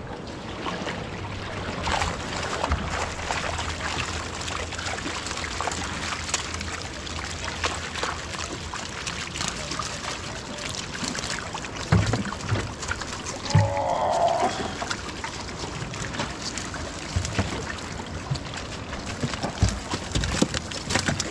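Water splashing and trickling around a small fishing boat, with a few dull knocks about halfway through and near the end.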